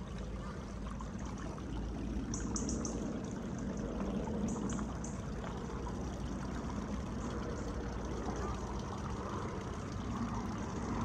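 Low, steady rumble of a big plane approaching overhead, growing slightly louder toward the end.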